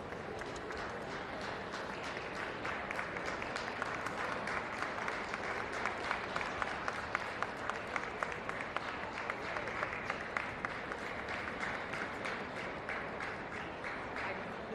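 Audience applauding, with many sharp individual claps over a steady hubbub. The clapping swells through the middle and dies away near the end.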